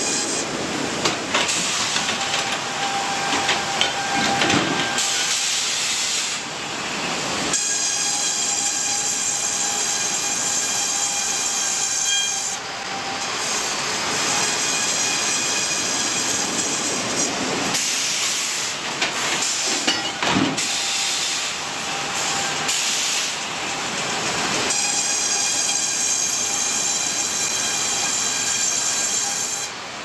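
Sawmill machinery running as large timbers are sawn and moved on the carriage and rollers: a steady rushing noise with a high, multi-toned saw whine, changing in character every few seconds.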